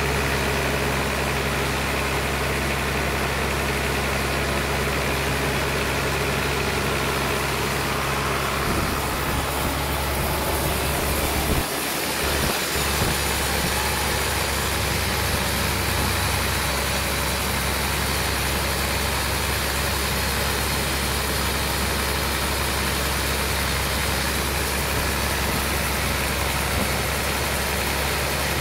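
Sawmill engine running steadily, a low hum with a hiss of noise above it, briefly cutting out about twelve seconds in.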